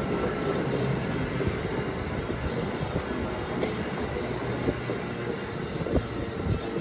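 Amtrak Northeast Regional's stainless-steel Amfleet passenger cars rolling past with a steady rumble of wheels on rail. A few sharp clacks come in the second half, over a faint high wheel squeal.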